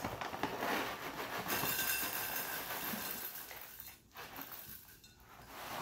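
Chunks of horticultural charcoal poured from a plastic bag into a glazed ceramic pot: a dense clattering, clinking rattle of small pieces on ceramic with the bag crinkling, easing off about four seconds in.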